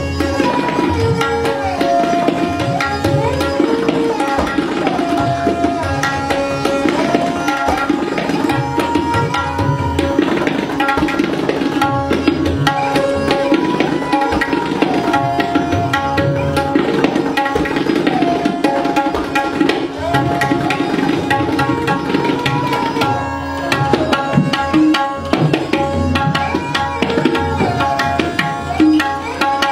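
Tabla solo: fast, dense strokes on the tabla pair over a melodic accompaniment that repeats the same short phrase over and over.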